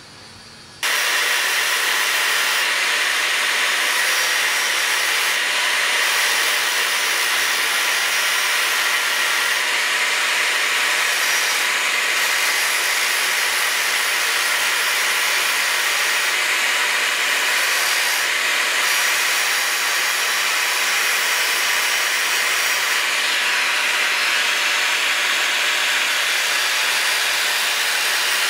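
Angle grinder with a thin cut-off disc cutting through the steel of a cutlass blade, a steady, high grinding whine. It starts suddenly about a second in and runs on without a break.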